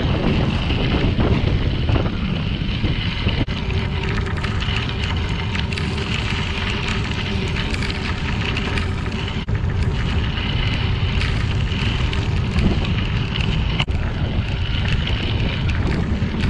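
Wind buffeting the microphone of a bicycle-ride camera, over the steady rumble of tyres rolling on a crushed-limestone trail.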